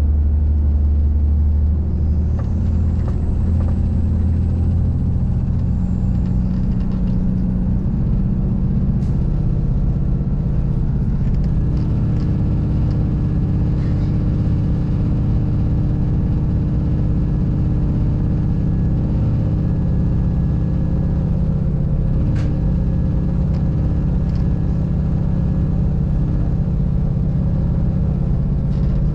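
Regional train running, heard from inside the carriage: a steady low rumble with engine tones that shift in pitch now and then, and a few faint clicks.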